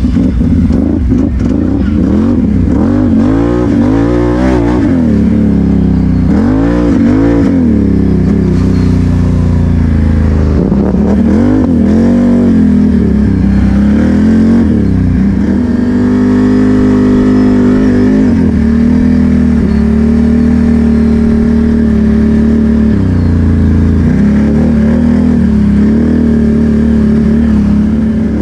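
ATV engine revving and easing off over and over as it is ridden, then holding a steadier speed for the second half.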